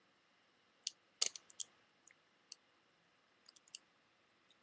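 Lock pick and tension wrench clicking in a Cisa Logo Line pin tumbler lock during single pin picking: small, irregular metal clicks as the pins are pushed up and set, the loudest a quick cluster a little over a second in.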